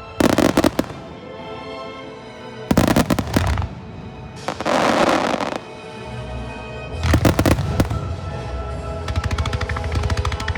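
Aerial fireworks bursting in quick volleys of sharp bangs, several separate clusters, with a rush of noise in the middle and a fast string of crackling reports near the end. Music plays steadily underneath.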